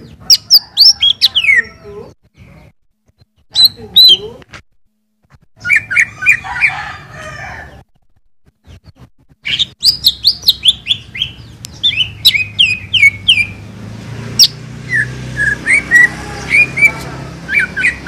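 Greater green leafbird singing phrases of quick whistled notes, each sliding down in pitch, with short pauses between phrases. About halfway through, the song turns into an unbroken run of chattering notes.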